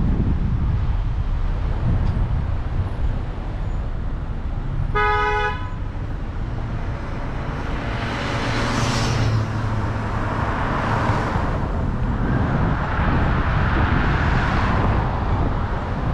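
Steady low rumble of a car driving slowly through town traffic, with a short horn toot about five seconds in. In the second half the noise swells and fades three times in hissing rushes.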